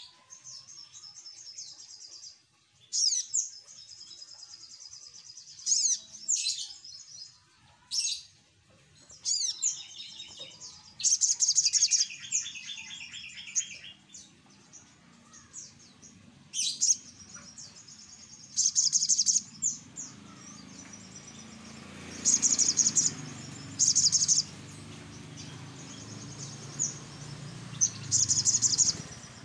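Olive-backed sunbird (sogok ontong) singing: repeated bursts of high, rapid chirps and short trills with brief gaps between them. A low rumble comes in underneath from about twenty seconds in.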